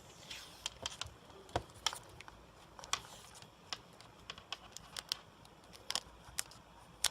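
Tape being wound around a small bare circuit board by hand: scattered light clicks and short crackles, irregular and close.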